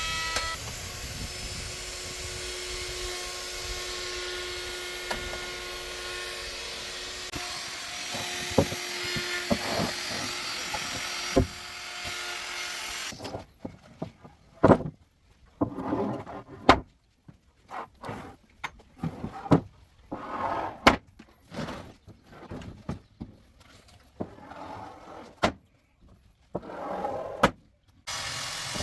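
Woodworking tool sounds on wood. A steady machine hum runs for about the first half, then cuts off. After that come irregular sharp knocks and scrapes of work on the wood.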